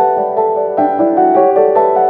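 Background music: a piano melody with chords, notes changing every few tenths of a second.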